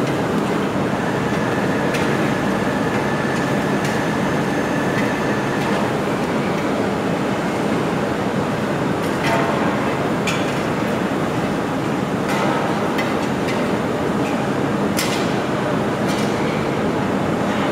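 Steady loud industrial rumble of a hot-dip galvanizing line, with a few sharp metal clinks in the second half.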